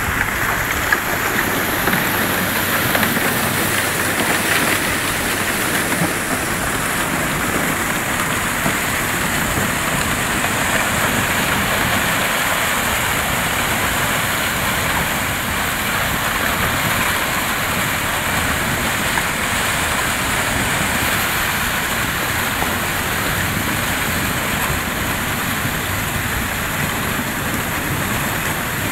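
Broken river ice and slush grinding and rustling against a vessel's hull as it pushes slowly through the ice, a steady crunching hiss with an occasional sharp crack.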